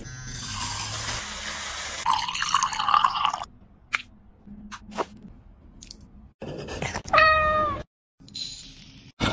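A cat meowing once, a short clear call about seven seconds in, after several seconds of kitchen noise with dripping water and a few sharp clicks.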